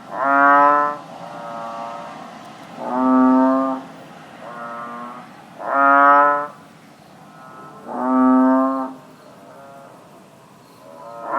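Bullfrogs calling: four loud calls of about a second each, roughly every two and a half seconds, with quieter calls in between and another loud call beginning near the end.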